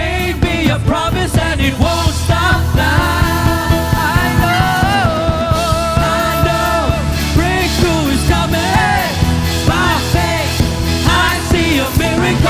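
Worship band playing with lead singing: drums, bass and a melody voice, with long held sung notes in the middle.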